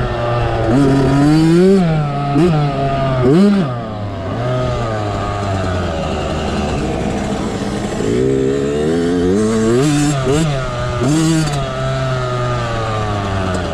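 Yamaha YZ65's two-stroke single-cylinder engine running hard, its pitch climbing and dropping over and over as the throttle is opened and closed.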